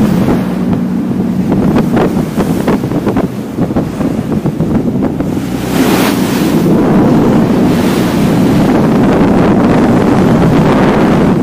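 Sportfishing boat running at sea: water rushing and splashing along the hull, with wind buffeting the microphone and a steady low engine drone underneath. A louder surge of wash comes about six seconds in.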